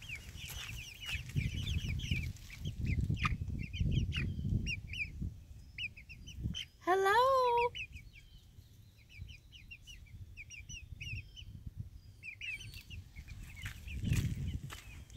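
A coop full of young chickens peeping and cheeping, with many short high chirps in quick runs throughout. A low rumble comes under them in the first few seconds and again near the end.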